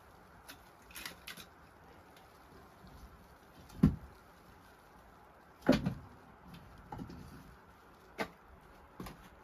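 Scattered knocks and thumps over a faint steady hiss, with three louder ones about four, six and eight seconds in, and a few small clicks between them.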